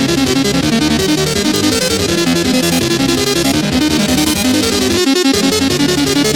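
Loud, fast electronic music with a busy stepping synth melody over a steady beat. The bass drops out briefly about five seconds in.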